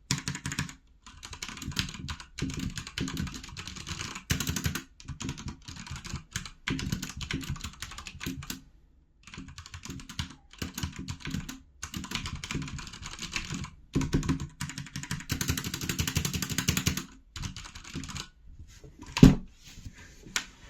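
Fast typing on a HyperX tenkeyless mechanical keyboard with linear red switches, in runs of rapid keystrokes broken by short pauses, with one louder knock near the end.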